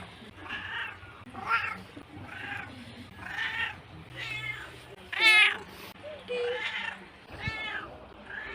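Domestic cat meowing over and over, about eight meows roughly a second apart. The loudest is a longer meow a little past the middle that rises and falls in pitch.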